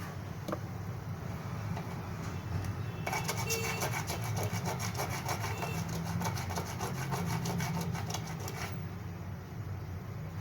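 Fast, even scraping strokes, several a second, starting about three seconds in and stopping about two seconds before the end, over a steady low hum.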